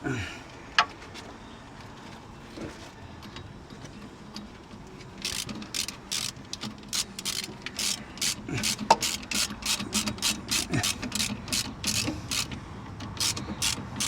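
A 1/4-inch drive socket ratchet clicking in quick, even strokes, about three to four a second, for roughly eight seconds from about five seconds in, as a driveshaft bolt is turned. A single sharp knock comes about a second in.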